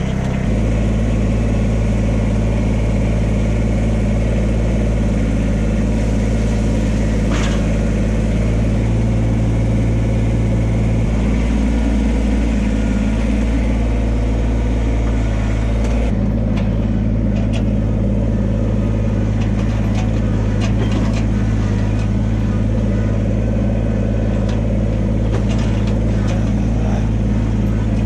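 Kubota compact tractor's diesel engine, freshly started, running steadily. Its engine speed shifts about eleven seconds in and again about sixteen seconds in, and light knocks and rattles come through in the second half as the tractor moves off.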